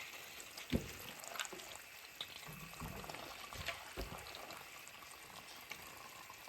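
A curry pot on the stove, faintly sizzling and bubbling as ingredients are added to the fried spice paste. A few soft knocks and thuds sound, the clearest about a second in and again about four seconds in.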